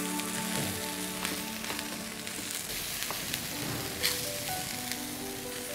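Raw prawns sizzling on hot pebbles in an enamelled cast-iron pan while a silicone spatula pushes the stones over them, with scattered clicks of stone on stone. Soft background music plays underneath.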